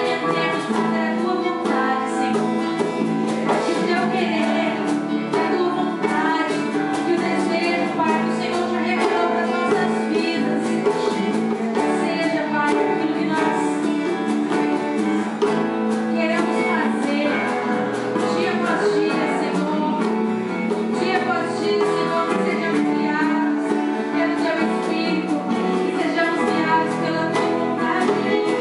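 Worship song with a woman's voice singing over sustained instrumental chords, the music carrying on without a break.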